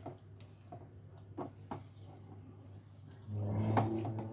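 Silicone spatula stirring chicken and vegetables in a nonstick frying pan: a few soft scrapes and taps. About three seconds in, a louder steady low hum with overtones starts and carries on.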